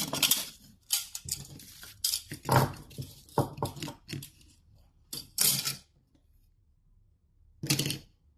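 Sheet metal test pieces and riveting tooling clanking and clattering in a string of short, irregular metallic knocks and rattles, with a pause of about two seconds before a last clatter near the end.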